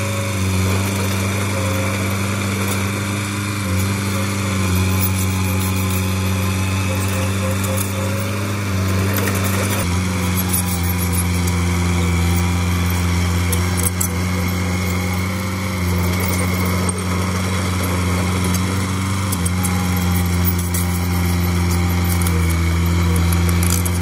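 Komatsu D31P crawler bulldozer's diesel engine running steadily, its pitch shifting a few times, with faint scattered clicks over it.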